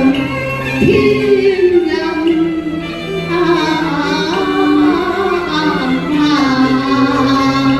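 A Cantonese opera duet sung by women in the pinghou (natural chest-voice) style, with long sliding, held notes over instrumental accompaniment.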